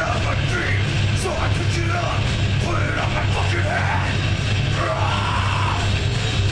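Live heavy metal band playing: distorted electric guitars, bass and drums at a steady loud level, with yelled vocals over the top.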